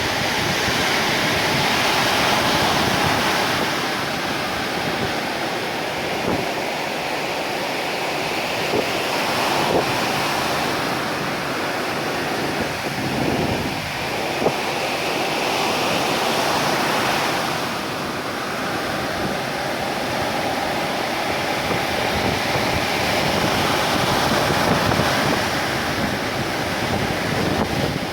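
Ocean waves breaking and washing on the shore, a continuous rushing surf that swells and eases every several seconds, with wind buffeting the microphone.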